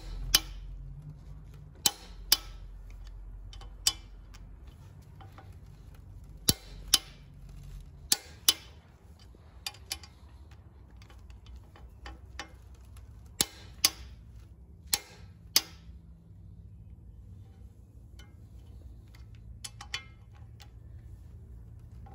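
Click-type torque wrench clicking over as the flywheel bolts are tightened to spec, sharp clicks mostly in pairs every few seconds, with lighter ratchet clicks between them. A steady low hum runs underneath.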